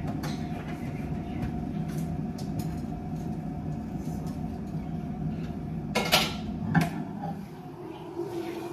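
Electric kettle heating water, giving a steady low rumbling hiss. About six seconds in come two sharp clicks as the kettle is switched off and lifted from its base, and the rumble then fades away.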